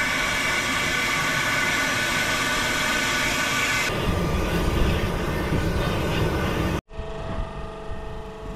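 Wood fire burning hard in a steel fire pit, a steady rushing hiss of flames with a sudden change in tone about four seconds in. Just before seven seconds in it cuts off and background music with steady tones takes over.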